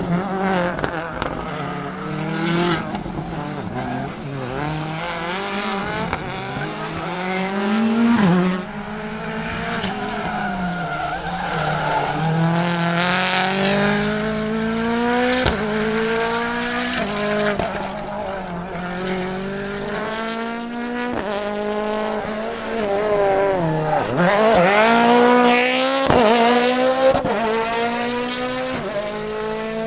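Rally car engine revving hard, its pitch climbing through each gear and dropping sharply at the shifts, with several short cracks along the way.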